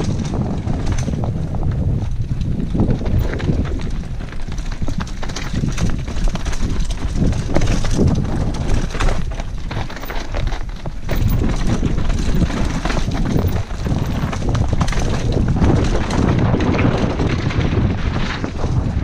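Wind rushing over a helmet-mounted camera's microphone during a fast downhill mountain-bike descent, with a steady low rumble from the tyres on dirt and rock. Frequent short knocks and rattles come from the bike jolting over rough ground.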